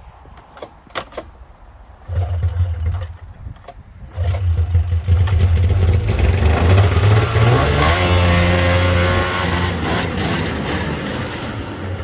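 Polaris 440 Pro X snowmobile's two-stroke engine running on brake cleaner poured into its carburetor bowls and cylinders. It fires about two seconds in and dies, catches again a second or so later and keeps running, then revs higher and fades away as the sled drives off.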